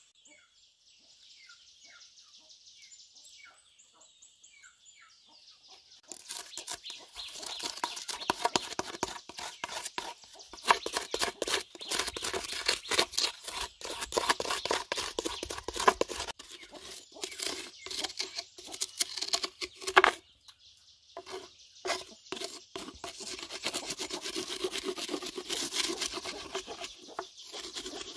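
A metal blade scraping and chipping charred wood from the inside of a burnt-out log being hollowed into a mortar, in rapid, uneven strokes with a few sharp knocks. For the first six seconds there is only a faint high buzz with short bird calls.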